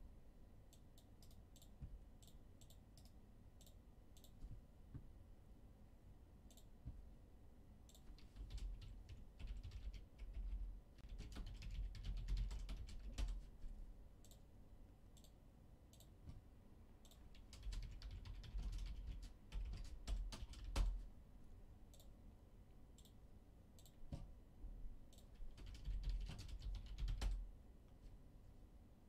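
Typing on a computer keyboard in three bursts, with scattered single key clicks in between.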